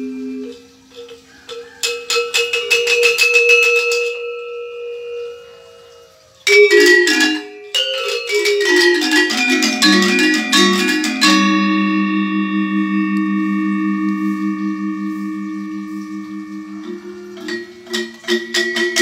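A pair of Balinese gendèr wayang, bronze-keyed metallophones, struck with mallets in quick runs of interlocking notes, with pauses where the keys ring on. About halfway through, a chord rings on for several seconds with a slight pulsing shimmer, and the quick playing starts again near the end.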